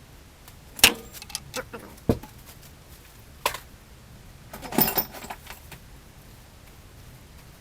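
Metal hand tools clinking and clanking as a large adjustable wrench is handled at the crank gear install tool: a few sharp metallic clinks, the loudest about a second in, and a short rattling cluster around five seconds in.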